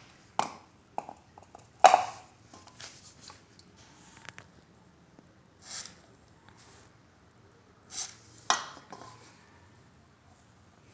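Small metal parts of an electric radiator fan motor being handled on a bench during reassembly: scattered clicks and knocks, the loudest about two seconds in, with a couple of brief hisses near the middle.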